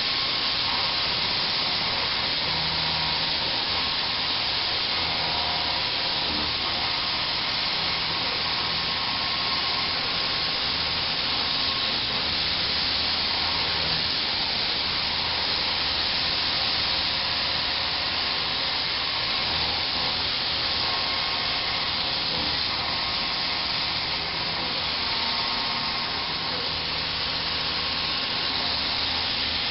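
Millstar HFA-2000/5 two-inch high-feed indexable milling cutter roughing pre-hardened P-20 mould steel on a CNC vertical mill at a shallow 0.040" depth of cut and 245 inches per minute feed: a steady, even hiss of the cut with a low machine hum underneath.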